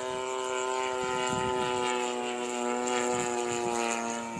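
Radio-controlled 3D aerobatic model plane's motor and propeller running at high throttle with a steady, even pitch, growing louder toward the middle and fading slightly near the end.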